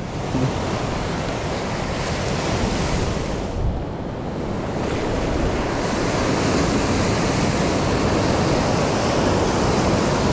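Ocean surf breaking and washing up a stony beach, with wind buffeting the microphone.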